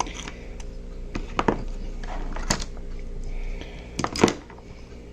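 Hand tool clicking and tapping against a small diecast toy car's metal and plastic parts: a few scattered sharp clicks, the loudest two close together near the end.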